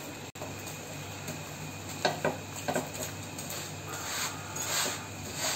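Flat metal spatula scraping and pressing a flatbread on a hot tawa, cooked without oil: a few short scrapes about two seconds in, then a longer rub near the end as the bread is turned.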